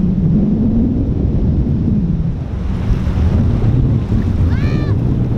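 Wind buffeting the microphone over the wash of shallow surf on a sandy beach. A brief high-pitched call rises and falls near the end.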